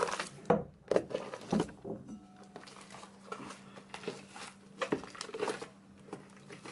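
Fluffy shaving-foam slime being worked with borax: irregular sticky squelches and crackles as it is kneaded and stirred.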